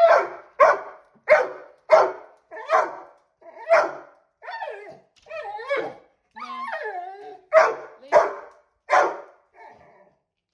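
A dog barking repeatedly, about one bark every half second to a second, breaking midway into a couple of seconds of drawn-out, wavering whine-like calls before the barking resumes.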